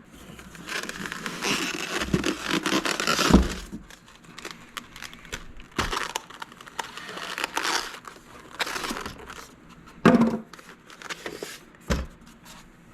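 Packaging and cables being handled, crinkling and rustling in bursts, with several clicks and knocks; the loudest knock comes about three seconds in.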